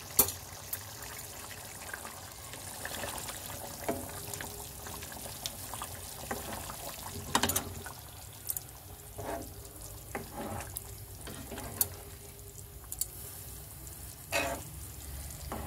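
Thick matar paneer gravy simmering and bubbling in a kadhai while a metal ladle stirs it, with scattered sharp clicks and scrapes against the pan.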